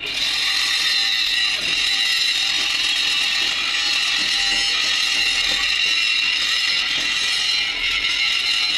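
Background music that starts suddenly and runs on at a steady level.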